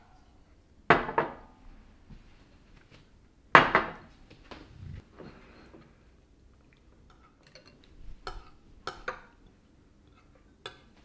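Ceramic soup bowls and utensils knocking on a glass-topped table. There are two sharp clunks with a brief ring, about one and three and a half seconds in, then lighter clinks of chopsticks and spoons against the bowls near the end.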